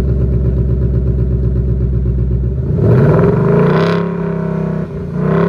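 Stock 2019 Ford Mustang GT's 5.0 V8 through its factory active exhaust, idling steadily and then blipped twice: a rise in revs about two and a half seconds in that falls back to idle, and a second, shorter rev near the end.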